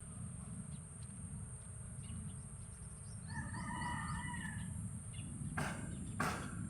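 A rooster crowing once, a call of about a second, over a steady low rumble and a faint high steady tone. Two sharp knocks near the end.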